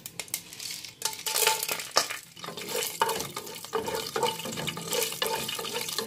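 Whole spices sizzling as they go into hot ghee in a nonstick pot, with repeated knocks and scrapes of a wooden spatula stirring them.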